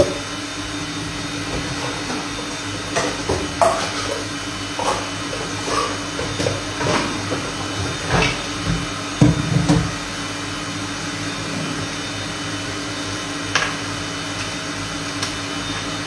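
Steady hum of a running kitchen appliance, with a run of knocks and clatter of kitchenware from about three to ten seconds in and one more knock near the end.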